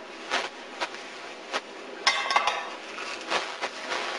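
Kitchen clatter as diced carrots are tipped into a stainless steel soup pot: several clinks and knocks of a dish against the pot, the loudest about two seconds in with a brief metallic ring.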